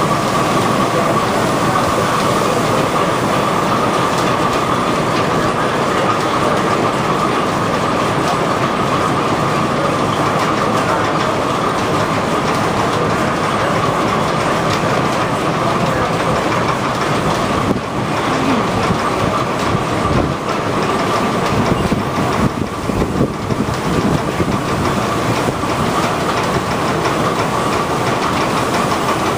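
Steam-powered line shafting and belt-driven machinery running: a steady mechanical clatter with a constant whine, and a few louder irregular knocks about two-thirds of the way through.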